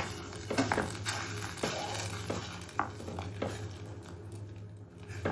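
A utensil knocking and clinking against a cooking pot of onions and water, a sharp knock about every half second that fades out near the end, over a steady low hum.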